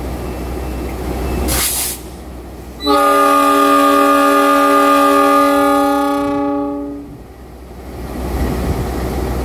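KAI CC206 diesel-electric locomotive idling with a low rumble. A short hiss comes about a second and a half in, then its multi-note air horn sounds one steady blast of about four seconds as the train's departure signal.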